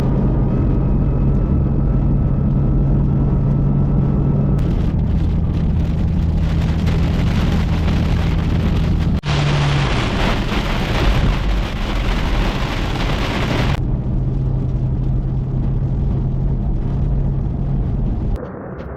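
Car engine running steadily under heavy rain noise. Partway through, the rain noise swells to a loud, full hiss for several seconds, then drops back to the engine and rain.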